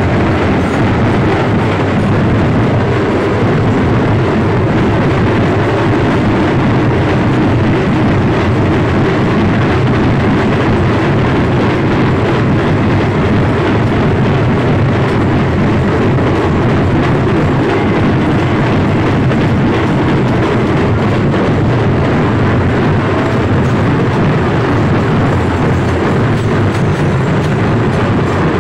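Loud, constant din of a street procession crowd with drumming and amplified music, so dense that it blurs into a steady noise with no clear beat or voices.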